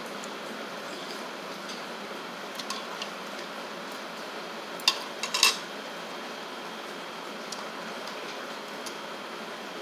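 Eating utensils clinking against dishes: a few light taps, then a quick cluster of louder clinks about five seconds in, over a steady background hiss.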